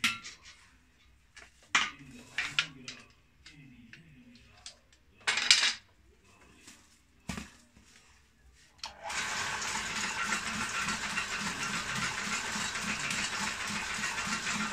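Dry broom straw rustling and clicking as it is handled and set under the needle, with one louder rustle about five seconds in. About nine seconds in, the homemade broom-sewing machine starts and runs steadily with a fast, even rhythm.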